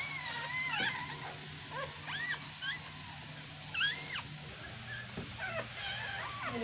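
Newborn puppies crying with thin, high squeaks that rise and fall: one longer wavering cry at the start, then short squeaks every second or so, fainter near the end. A faint steady low hum runs underneath.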